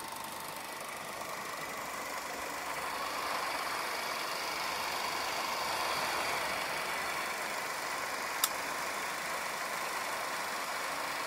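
Comet (Cirse) standard 8mm film projector running with a steady mechanical whir, rising a little in level over the first few seconds. One sharp click about eight seconds in.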